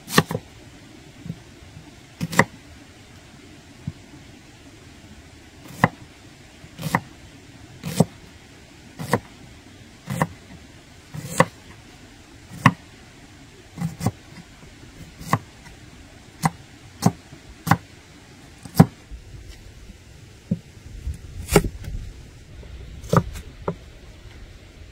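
A series of sharp knocks, about twenty of them at roughly one a second, with a low rumble in the last few seconds.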